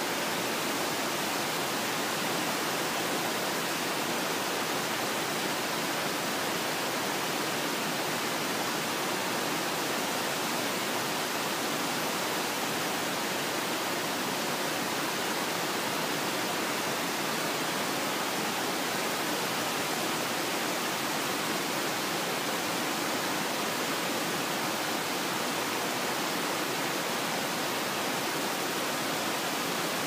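Small waterfall: water pouring steadily over rock ledges, an even rushing noise that does not change.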